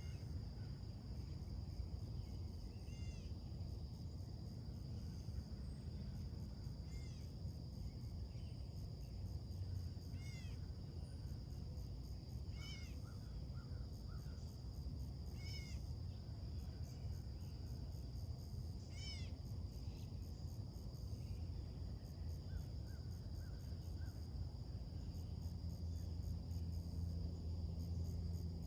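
A bird giving a short call six times, about every three seconds, with a few fainter chips between. Under it run the steady high hum of insects and a low background rumble.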